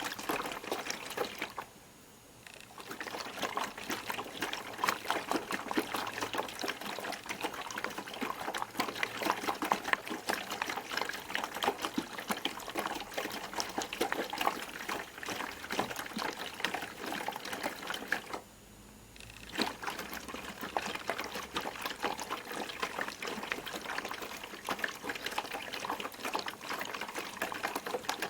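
Piko WS5522 washing machine in its final rinse: laundry churning and splashing in the rinse water. The wash action stops briefly twice, about two seconds in and again after about eighteen seconds.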